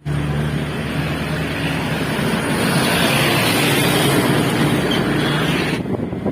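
Highway traffic: a heavy vehicle's engine and tyre noise passing close, its hiss swelling about three to five seconds in, then dropping away abruptly near the end.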